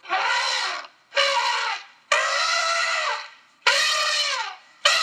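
Outro sound effects: a string of five short, high-pitched, voice-like sounds, each about a second long, with gaps between them and pitch that bends up and down.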